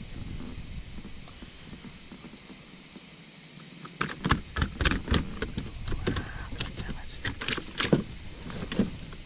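Irregular knocks, bumps and clatters, about a dozen over five seconds, from hands handling a phone pouch and a fish on a plastic kayak deck, after a few seconds of steady low rumble.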